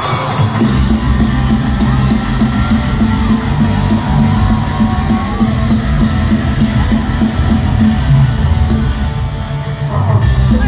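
Live rock band playing loud with heavy drums and distorted electric guitar, crashing in hard at the start. The band briefly thins out about nine seconds in and comes back at full force near the end.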